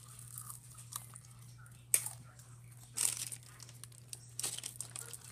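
Rustling and crinkling handling noises, with a sharp click about two seconds in and louder rustles near the middle and end.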